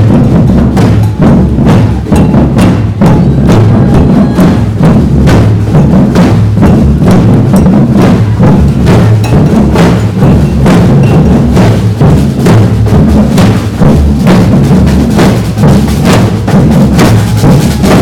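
A large group of marching drummers beating bass drums together, loud, with rapid, closely spaced strikes in a continuous rhythm.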